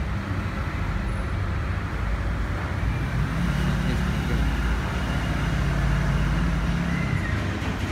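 Isuzu Panther diesel engine idling steadily, a constant low rumble, with its air intake hoses off.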